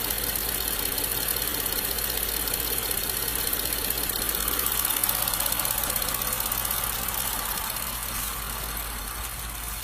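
3.0-litre V6 engine of a 2017 Mitsubishi Outlander GT idling steadily with the hood open, with a fast, even ticking under the running sound; it gets a little quieter near the end.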